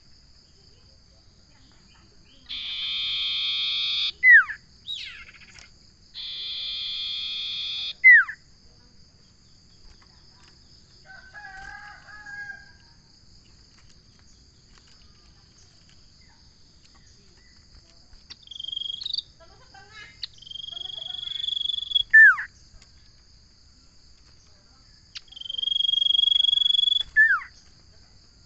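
Common iora (cipoh) singing: four long drawn-out high notes, each ending in a sharp falling note, with a few softer calls between them.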